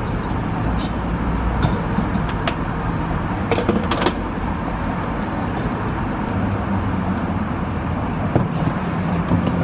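Steady gas-station forecourt hum and rushing noise, with a few light clicks and knocks from the fuel pump and the car.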